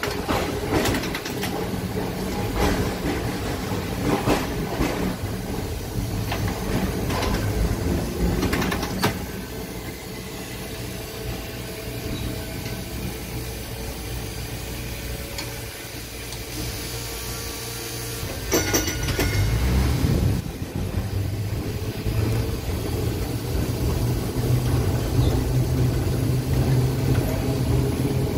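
Electric streetcar running along its rails, heard from inside the car: a steady low hum with sharp clicks and rattles, a clatter about nineteen seconds in, then the running grows louder.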